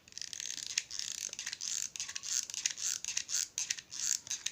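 Cardboard pieces being handled and pressed together, a dense crackling and scraping with many small clicks.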